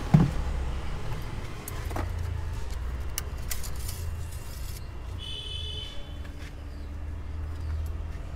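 A sharp thump as a plastic engine-oil bottle is set down on the car, then small clicks and handling noises and a brief high squeak about five seconds in as the engine oil dipstick is drawn out, over a steady low rumble.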